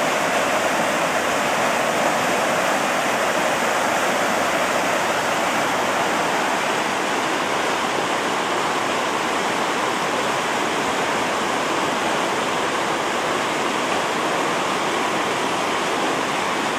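Floodwater rushing and churning: a steady, unbroken rush of fast-flowing water.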